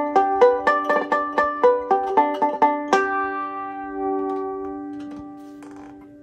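Banjo picked in a quick run of bell-like natural harmonics (chimes), about four to five notes a second, then a last chord left ringing and slowly fading from about three seconds in.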